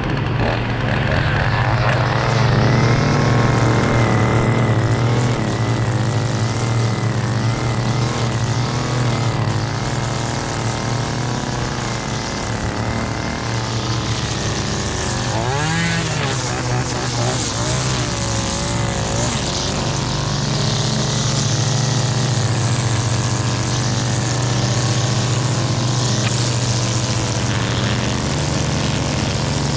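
String trimmer running at speed, its spinning line cutting grass and dirt along a sidewalk edge. The motor pitch wavers briefly about halfway through, then settles again.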